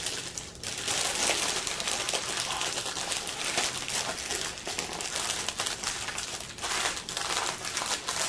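Clear plastic bags of diamond-painting drills crinkling and crackling as they are handled.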